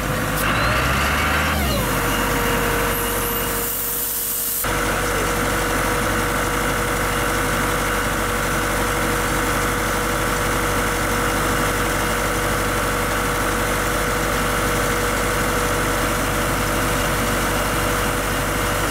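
Portable air compressor's engine running steadily, a constant mechanical hum with a steady whine.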